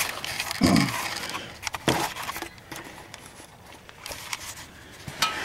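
Handling noise from a handheld camera being carried and moved about: rustling, scraping and several sharp clicks, with a short low thump just under a second in.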